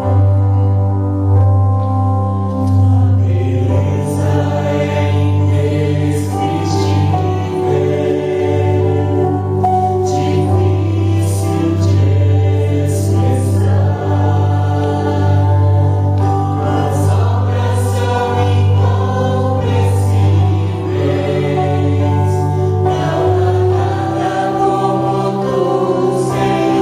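Church congregational singing of a worship song over instrumental accompaniment, with a steady, sustained bass line underneath.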